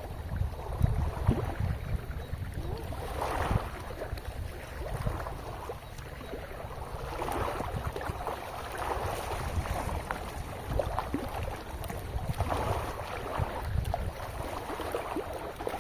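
Wind buffeting the microphone in irregular gusts, over a rush of moving water that swells at times.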